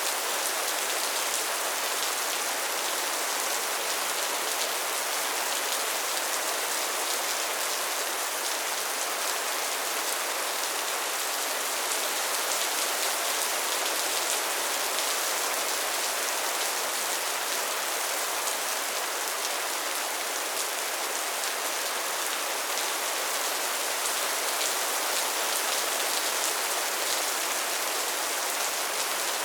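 Steady rain falling: an even hiss, strongest in the high range, flecked with the fine ticks of single drops.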